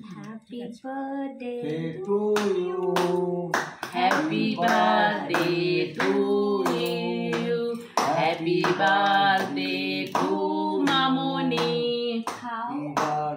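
Family voices, mostly women, singing a birthday song together in held notes, with hand claps keeping a steady beat.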